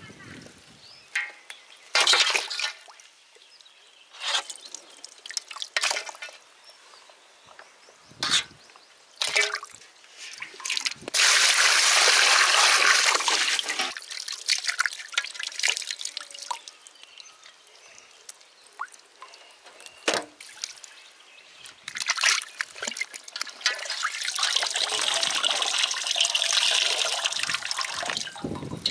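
Water splashing and trickling in a steel basin as skinned rabbit carcasses are washed by hand and lifted out dripping. There are scattered short splashes and two longer stretches of water running off the meat, one in the middle and one near the end.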